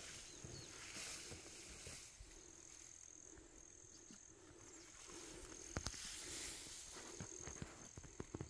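Faint outdoor ambience: a thin high steady tone that comes and goes, a faint low hum, and a few light clicks.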